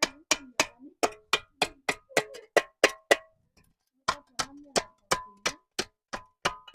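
Hammer striking metal in a steady rhythm of about three blows a second, each blow ringing briefly, with a pause of about a second a little past the middle.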